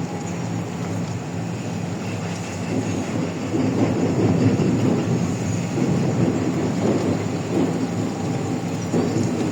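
Excavator's diesel engine running steadily, with a heavier rumble of working noise that grows louder from about three and a half seconds in.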